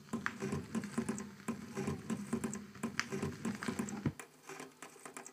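Surface noise of an old record on a record player after the music has ended: irregular crackles and clicks over a low hum. About four seconds in there is a single thump, after which the low hum stops.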